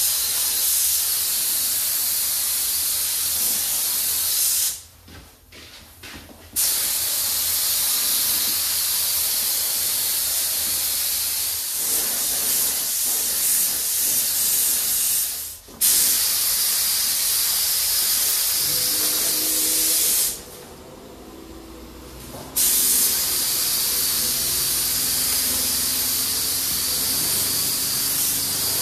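Compressed-air spray gun spraying Raptor bed liner: a loud, steady hiss of air and atomised coating that stops and starts as the trigger is let go, with a pause of about two seconds around five seconds in, a brief break near the middle, and another two-second pause about two-thirds through.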